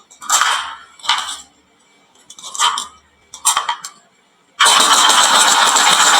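Marbles rattling down a wooden marble run: four short runs in quick succession, then from about four and a half seconds in a long continuous rattle as many marbles roll down together.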